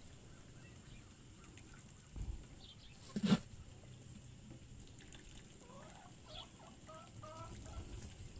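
Chickens clucking faintly: a run of short calls in the last couple of seconds, after two soft knocks near the middle.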